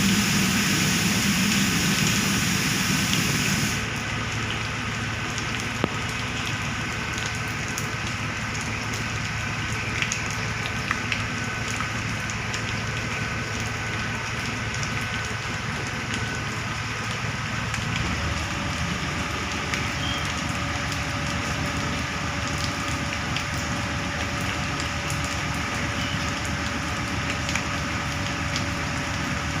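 Diesel truck engines of a concrete mixer and concrete pump running steadily under a crackling noise, louder for the first few seconds, with the engine note changing about eighteen seconds in.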